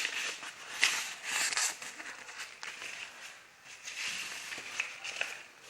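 Rustling of a fishing rod's packaging being handled and unwrapped, with scattered light clicks and taps and louder rustles about a second in and again shortly after.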